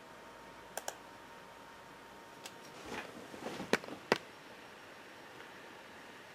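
A quick double click of a computer mouse about a second in. Then rustling handling noise with two sharp knocks about three and a half and four seconds in, as the camera is picked up and moved.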